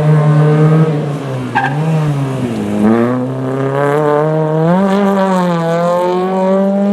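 Rally car engine at high revs: the note drops about two seconds in, then climbs again and holds, as the car lifts and re-accelerates through the stage. A short tyre squeal comes about one and a half seconds in.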